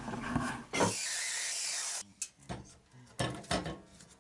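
A steady hiss for about a second that cuts off abruptly, then a series of short knocks and thumps as a wooden log is handled and set down on a miter saw table.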